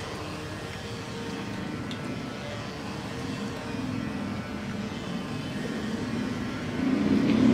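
Small electric motor and propeller of a homemade model airliner whirring steadily in flight. It swells louder in the last second and cuts off suddenly at the very end.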